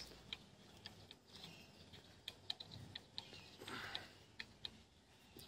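Faint, scattered light clicks as a hand turns the knob on a tractor's hydraulic distributor valve, against near silence.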